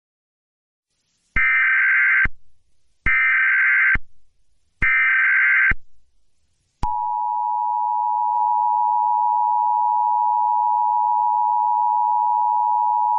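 Emergency Alert System tones: three bursts of SAME header data, each about a second long with short gaps between them, then the steady two-tone EAS attention signal, which starts about seven seconds in. Together they announce an alert message about to be read.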